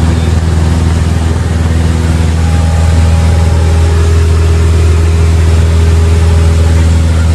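Cessna 172's piston engine and propeller droning steadily in flight, heard inside the cabin, with a constant rushing hiss of airflow over it.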